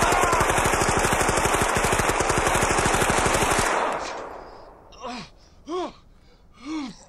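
Thompson submachine gun firing one long, rapid, continuous burst that stops about three and a half seconds in. After it, a wounded man gives three short pained groans, each falling in pitch.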